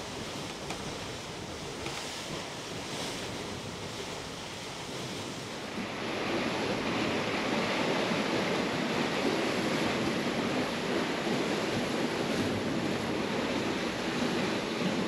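Open-sea waves and water rushing past the hulls of a sailing catamaran under way, with wind on the microphone. About six seconds in the rush grows louder and denser.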